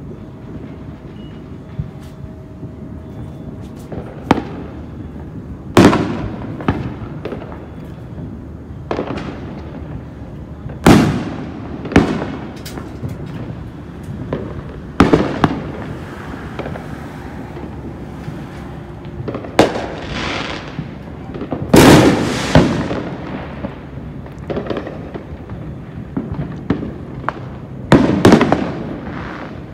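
Fireworks going off around a neighbourhood: loud sharp bangs every few seconds, each fading away over a second or so, over a steady background of many small distant pops.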